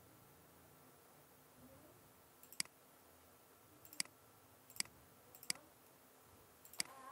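Computer mouse button clicking five times at uneven intervals, sharp and short, as menu options are picked.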